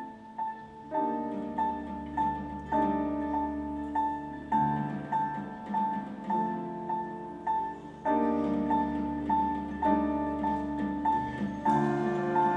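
Chamber ensemble playing a slow, gentle instrumental passage: a high note repeats about twice a second over held chords that change every couple of seconds. The chords come in about a second in, and the ensemble grows fuller and louder near the end.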